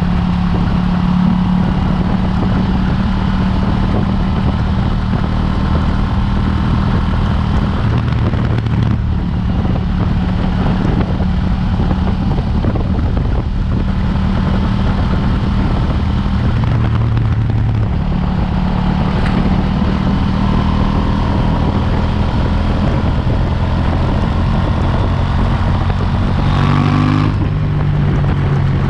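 KTM 790 Duke's parallel-twin engine running on its stock exhaust under way, holding a steady pitch that shifts several times as engine speed changes, with a short rise near the end.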